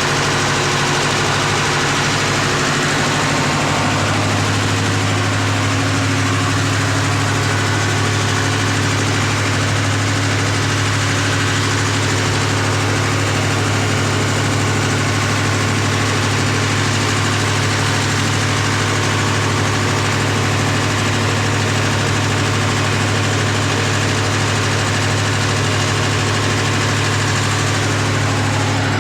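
Diesel generator engine running steadily, a loud, even mechanical drone with a strong low hum that steadies about four seconds in.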